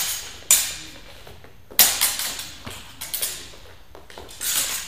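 Training swords clashing and striking in sparring: sharp clacks about half a second in, just before two seconds and around three seconds, each echoing in a large hall, with a longer, noisier clash near the end.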